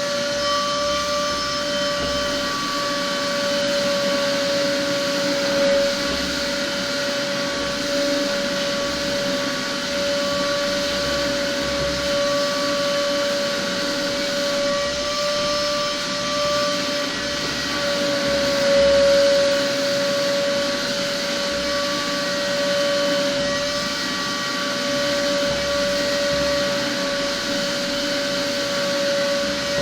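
Shop vacuum motor running steadily through a homemade cyclone separator: a constant high whine over even air noise.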